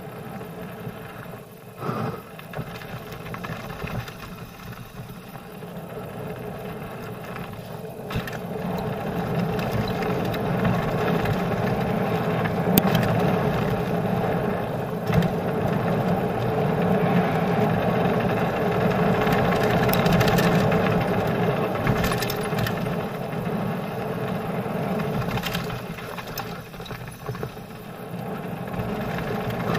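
Mountain bike rolling fast down a loose gravel trail: a steady rush of tyre and air noise with the bike rattling and sharp knocks now and then from stones. The rush grows louder about a third of the way in.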